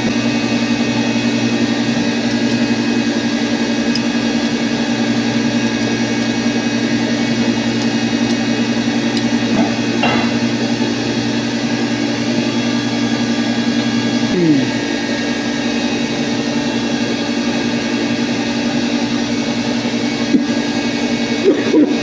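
Electric motor running with a steady, loud hum: a low drone with a stack of higher overtones that stays even throughout.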